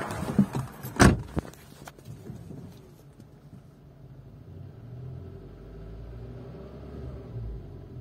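A car door shutting with a loud knock about a second in, among a few smaller knocks, then the VW Polo 9N3's 1.6 BTS four-cylinder petrol engine idling quietly, heard muffled from inside the cabin.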